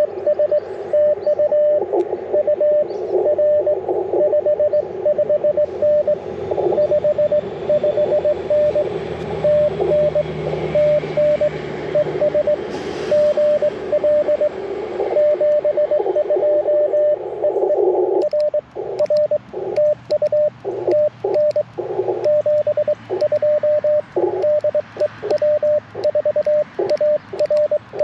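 Morse code (CW) on an Icom IC-705 transceiver: one steady beeping pitch keyed in dots and dashes. For about the first two-thirds it comes through the receiver amid band hiss, the signal of a station being worked. From then on it turns clean, with quiet gaps between the elements, like the radio's sidetone as the operator sends on paddles.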